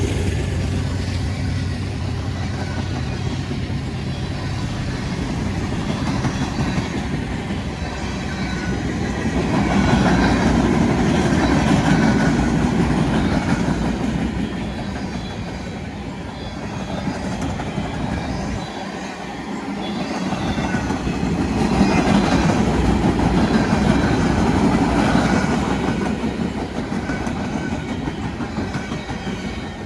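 Empty freight train rolling past, its wheels clacking over the rail joints with a steady rumble. The sound swells twice.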